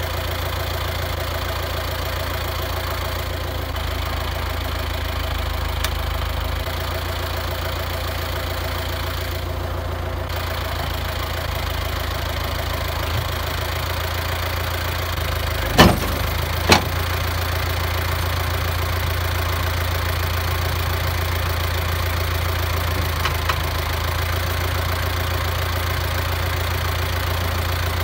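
The diesel engine of a 1977 International Harvester 574 tractor idling steadily. Two sharp knocks come a little past halfway, about a second apart.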